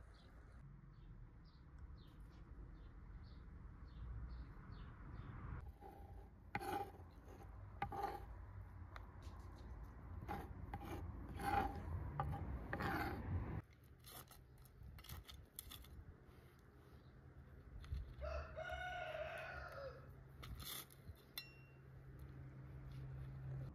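A rooster crows once, a single call about two seconds long, about three-quarters of the way through. Before it come rhythmic scraping strokes.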